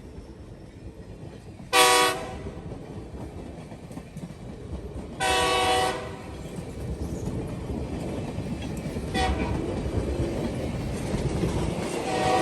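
Locomotive 3371's multi-chime air horn sounding a series of blasts: a short one about two seconds in, a longer one around five seconds, a brief faint one near nine seconds, and another starting near the end. Under the horn, the train's running rumble grows steadily louder as it approaches.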